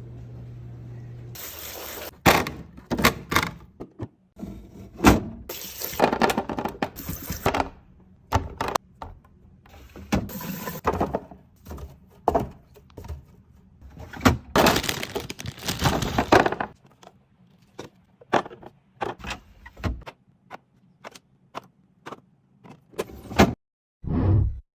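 Food containers, bottles and packaging being handled and set into a refrigerator: a rapid run of clicks, knocks and clinks, with several longer stretches of rustling or scraping that last a second or two.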